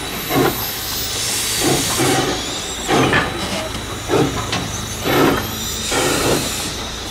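Baldwin 0-6-0 steam switcher locomotive moving slowly, its exhaust chuffing in an even slow beat, the beats often coming in pairs about a second apart, with hissing steam between them.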